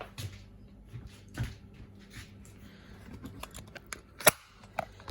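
Clicks and light knocks of hands and a tool working at the underside of a washing machine, with one sharp, loud click about four seconds in.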